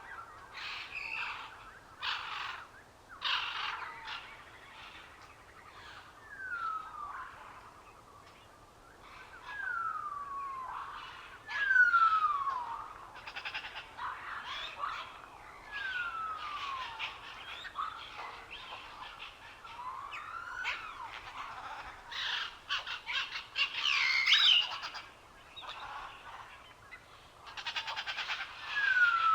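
Birds chirping and calling, with one clear whistle sliding down in pitch that repeats every two to three seconds among shorter chirps.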